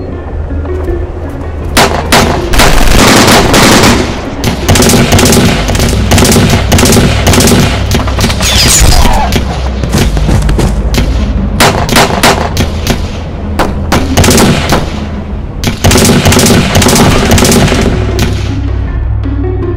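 Repeated bursts of rapid automatic gunfire, starting about two seconds in and dying away near the end, over a low, steady film score.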